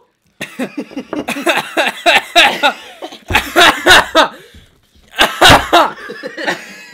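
Several teenage boys laughing hard in quick repeated bursts, with the loudest outbursts about halfway through and again near the end.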